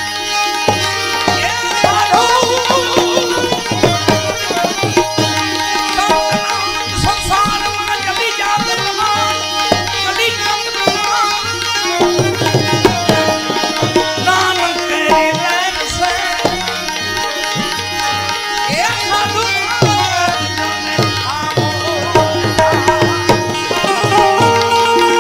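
Gujarati devotional folk bhajan music: tabla drumming under sustained melodic instrument lines, a steady instrumental passage.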